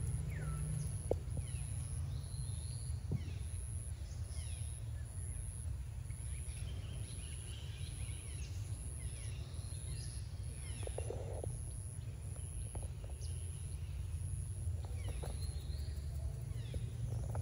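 Forest ambience with a steady low rumble, birds calling in short gliding notes again and again, and a high insect buzz pulsing about once a second. A few soft rustles of dry leaves come from macaques grooming on the stones.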